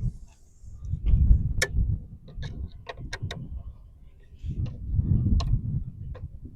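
Scattered small clicks and ticks of a small screw being driven by hand with a Phillips screwdriver into a plastic LED mirror turn-signal housing, over low rumbling handling noise.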